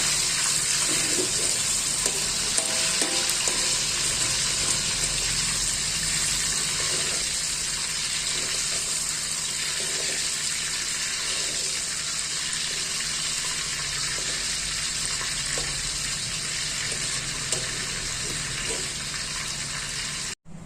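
Shallots, garlic and other spice-paste ingredients sizzling in hot oil in a pan, with occasional stirring scrapes. The sizzle slowly dies down and cuts off suddenly near the end.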